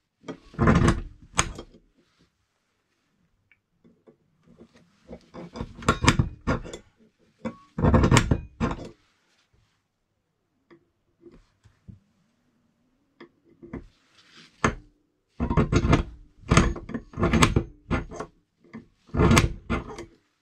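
Center punch being struck against a steel knife blank on a wooden bench, marking hole centres so the drill bit won't slip. Sharp metallic taps in several bursts of strikes, with quiet gaps between.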